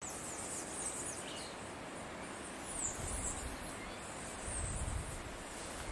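Tropical forest ambience at dawn: a steady background hiss with a few high bird chirps and short sweeping calls scattered through it. Two brief low rumbles come about three and five seconds in.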